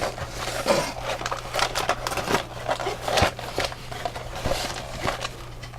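Cardboard box being opened by hand: irregular crackles, scrapes and small snaps of flaps and packaging.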